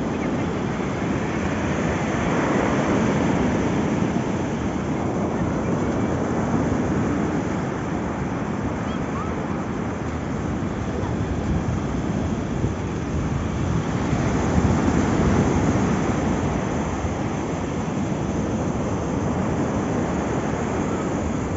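Ocean surf breaking on a pebbly beach: a steady rushing hiss that swells twice, once early and again about two-thirds of the way through, with wind buffeting the microphone.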